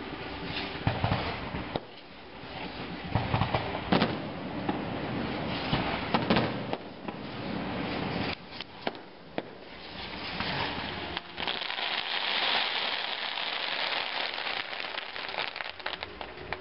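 Aerial firework shells bursting: a string of sharp bangs with crackling between them, then from about eleven seconds in a dense, continuous crackle of crackling stars.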